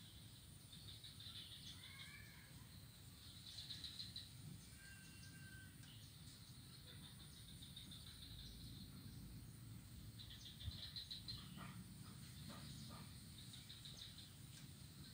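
Faint outdoor ambience of birds: short high chirping trills repeating every second or two, with a few brief whistled calls in the first few seconds, over a low steady rumble. A few faint clicks come near the end.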